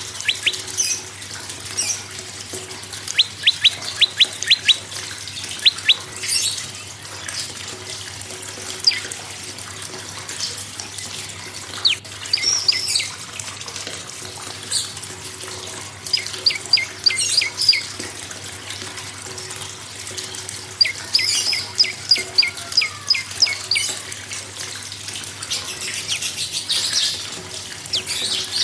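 Prenjak songbird calling in rapid trains of sharp, chipping notes, about eight a second. The bursts last one to two seconds and come every few seconds, over a faint steady hum.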